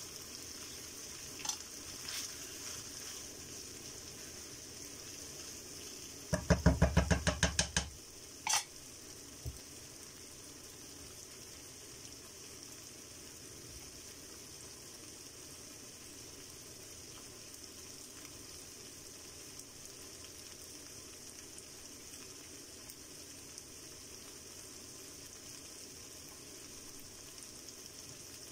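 Ground pork sizzling steadily in a nonstick frying pan. About six seconds in, a quick run of a dozen or so sharp clatters over about a second and a half, then a single click, the loudest sounds.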